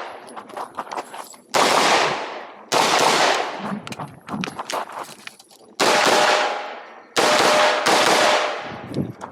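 Pistol shots, about five, spaced one to three seconds apart, each sharp and loud with a long echoing fade, and lighter clicks and knocks in between.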